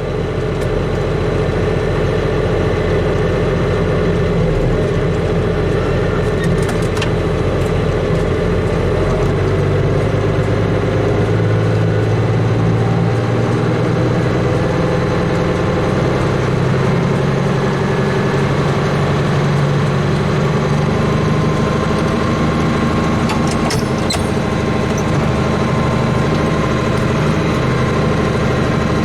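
Tractor engine running steadily while pulling a hay baler through the field.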